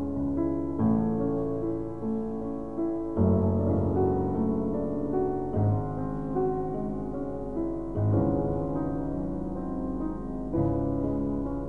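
Slow, gentle piano music, a new chord sounding about every two and a half seconds.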